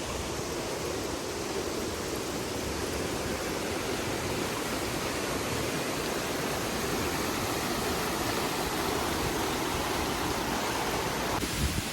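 Waterfall: water falling and splashing as a steady, even rushing hiss.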